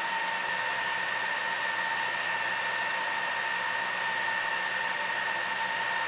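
Cooling fans of a Tyan Transport GT24 1U rackmount server running steadily: an even rushing hiss with a steady whine at two pitches.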